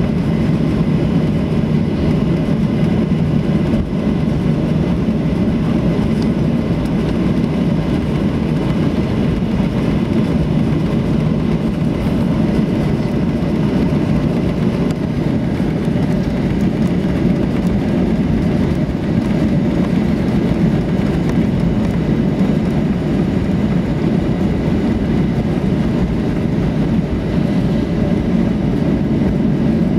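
Steady low rumble inside the cabin of a Boeing 737-800 taxiing, its two CFM56-5B engines running at low taxi thrust.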